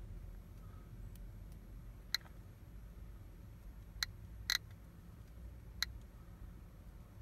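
GQ GMC-300E Plus Geiger–Müller counter clicking at random intervals, four short clicks here, each one a detected count; the rate is about 50 counts per minute, a background dose rate near 0.32 µSv/h. A low steady rumble lies underneath.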